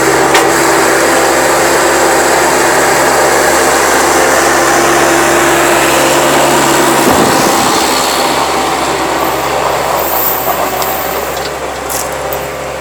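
Engine running steadily. About seven seconds in its pitch shifts and dips briefly, and it then gradually gets quieter.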